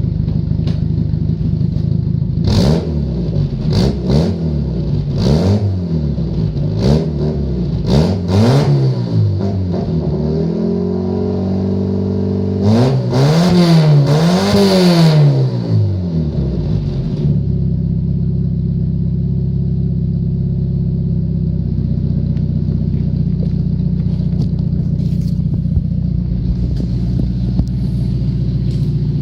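1989 Toyota Carina's 4A-F four-cylinder engine idling, then revved in about six quick blips, held briefly at a raised speed, and blipped twice more before settling back to a steady idle for the last twelve seconds or so.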